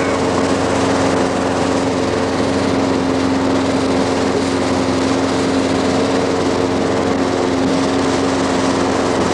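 Single-engine Cessna light airplane's piston engine and propeller running steadily in cruise, heard from inside the cabin as a loud, even drone with a steady hum.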